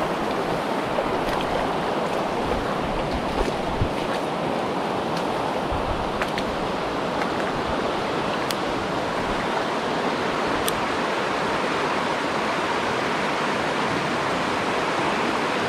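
Steady rush of a shallow mountain stream flowing over rocks, with a few faint clicks scattered through it.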